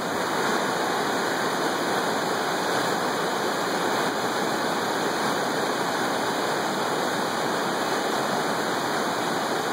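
Large mountain river rushing over rocks and small falls: a steady, full sound of moving water with no change.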